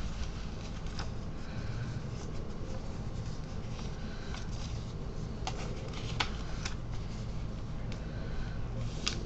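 A sheet of paper being folded and creased by hand into a paper airplane: rustling, with several sharp crackles of the paper in the second half and another near the end, over a steady low hum.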